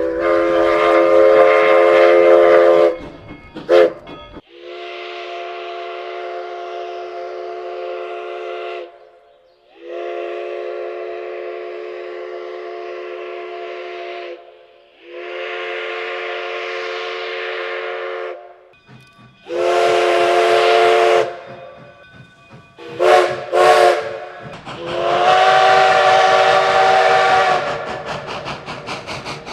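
Steam locomotive chime whistle blowing a series of blasts, each a chord of several tones: a loud opening blast, a short toot, three long blasts, another loud blast, two quick toots and a final long blast.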